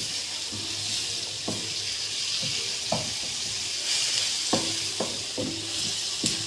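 Sliced red onions sizzling in hot oil in a nonstick frying pan, being fried toward golden brown. A wooden spatula knocks and scrapes against the pan several times as they are stirred.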